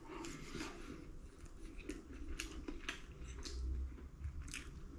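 Quiet eating sounds: chewing a pancake topped with banana, honey and cashews, with small irregular clicks of a fork against the plate.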